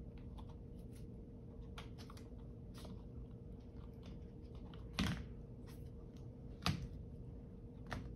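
A plastic laptop battery pack being handled and fitted into the open laptop chassis: faint crackling and small clicks, with two louder knocks, one about five seconds in and another a second and a half later, over a faint steady hum.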